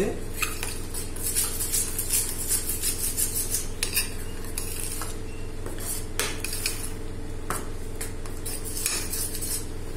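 Metal spoon stirring thick dhokla batter in a stainless-steel bowl, with repeated clinks and scrapes against the bowl's side. A steady low hum runs underneath.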